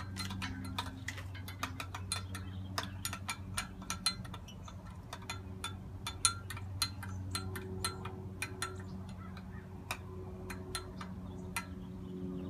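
A spoon stirring yeast into warm water in a glass measuring cup, clinking against the glass in quick, irregular ticks, over a steady low hum.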